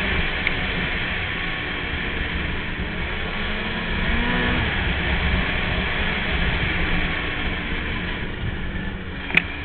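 Polaris 800 two-stroke snowmobile engine running steadily under way on the trail, briefly rising and falling in pitch about four seconds in. A sharp click sounds just before the end.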